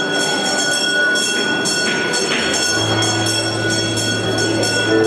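Slow music of held chords, with a deep bass note coming in about halfway, over a steady high jingling beat.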